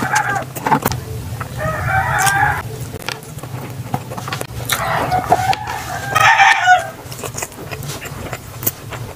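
A rooster crowing several times, each crow about one to two seconds long, over sharp clicks of eating close by and a steady low hum.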